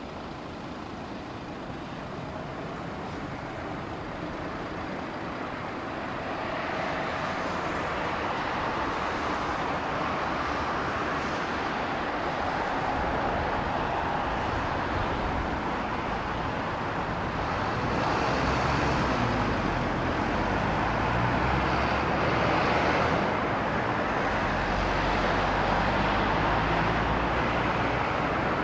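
Jet airliner on approach to land, passing close by; its engine noise builds steadily and is loudest in the second half, with a deep rumble and a high whine.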